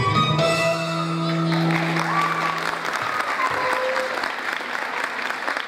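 Belly-dance music ends on a held final note, then audience applause with some cheering breaks out about a second and a half in and carries on.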